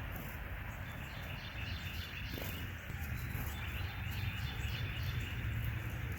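Birds chirping faintly in short repeated calls over a steady low rumble of background noise.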